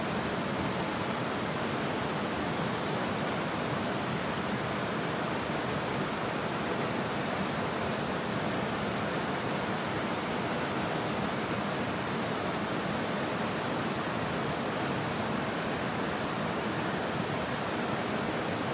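Steady rush of river water, an even hiss that never changes in level.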